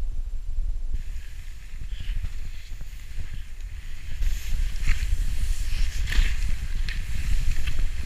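Wind rumbling on the microphone, joined about a second in by the hiss of skis sliding through snow, with a few short, sharp scrapes in the second half.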